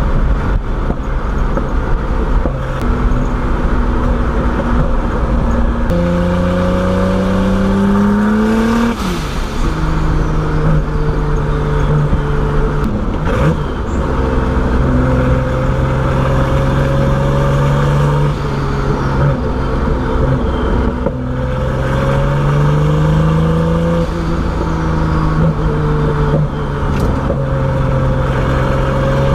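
Turbocharged BMW E30 engine driving through the streets, revving up in pulls and dropping in pitch at the gear changes. A few short sharp cracks come through, typical of exhaust pops.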